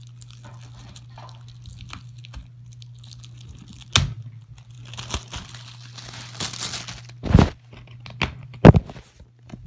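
A plastic DVD case being handled and opened close to the microphone: sharp knocks and clicks about four, seven and a half, and nine seconds in, the last the loudest, with crinkling and rustling between them. A steady low hum runs underneath.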